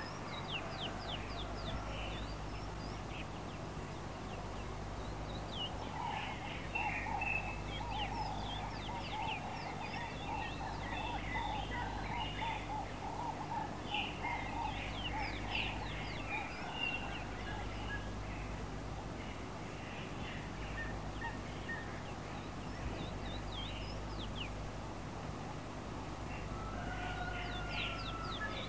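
Several birds chirping and chattering, with many quick falling notes and a busy run of rapid calls from about six to fourteen seconds in. A steady low hum lies beneath.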